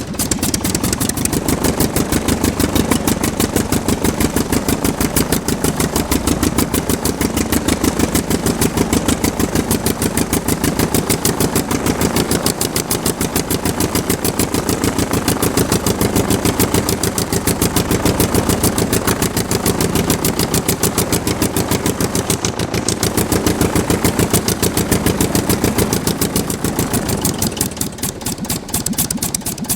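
Aircraft piston engine running steadily at speed, its rapid firing pulses coming in an even rhythm; it drops slightly in level near the end.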